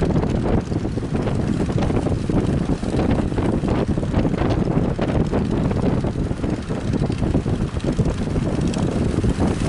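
Strong wind buffeting the microphone, a heavy rumbling noise that rises and falls rapidly, over the rush of surf.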